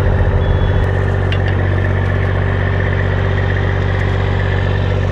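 A heavy diesel engine running steadily at idle, with a pulsing throb for about the first second.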